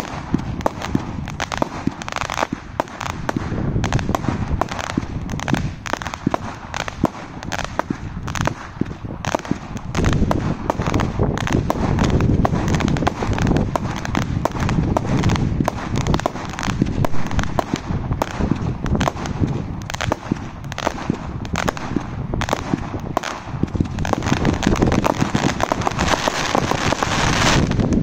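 Brothers Pyrotechnics Fireworks Crazy Mini, a 100-shot consumer firework cake, firing shot after shot in rapid succession. Its launches and small bursts merge into a dense, unbroken string of cracks that grows louder near the end.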